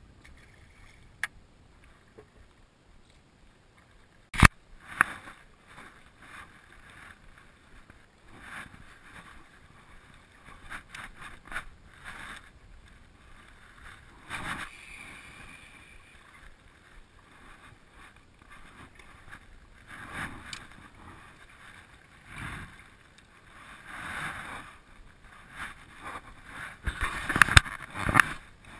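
Knocks, clicks and rustling of handling on a small boat's deck. A single sharp knock about four seconds in is the loudest, and the handling noise grows busier near the end.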